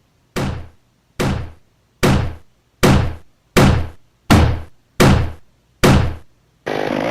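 A series of heavy knocks or thuds, about eight in a row, a little under a second apart, each ringing out briefly. Near the end a chainsaw starts up and revs, its pitch rising and falling.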